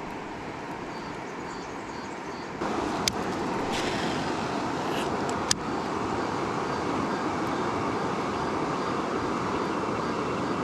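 Rushing water of shallow river rapids around a kayak, growing louder about two and a half seconds in, with two sharp knocks.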